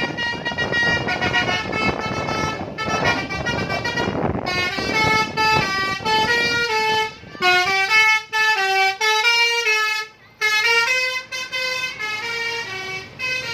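Indonesian 'telolet' bus horn, a multi-note musical air horn, playing a tune of short stepped notes. The first four seconds or so carry a noisy rumble beneath the horn.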